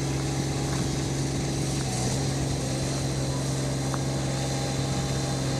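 Mower's engine running steadily at a constant speed, a continuous even drone.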